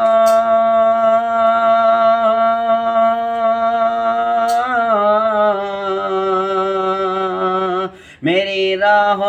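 A man singing a naat unaccompanied into a microphone, holding one long note for over four seconds, gliding to a slightly different note and holding that, then breaking off for a breath near the end before starting the next phrase.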